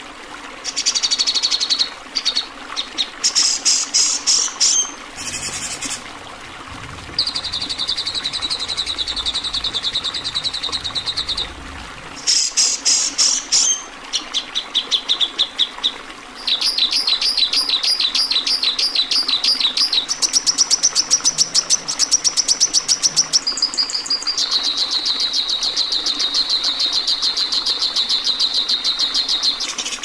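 Songbirds singing in loud phrases that change every few seconds: fast rattling trills and runs of sharp repeated notes, of the harsh 'tembakan' kind used in masteran recordings to tutor competition songbirds. A steady hiss lies beneath.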